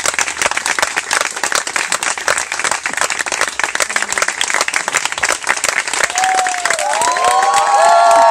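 A crowd applauding with dense, steady clapping. From about six seconds in, whooping cheers rise over the clapping and it grows louder.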